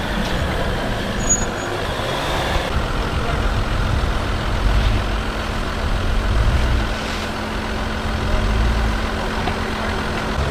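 Engine of an off-road 4x4 running low and steady at crawling speed on a rocky trail, a low rumble that swells slightly a few times over a steady hum.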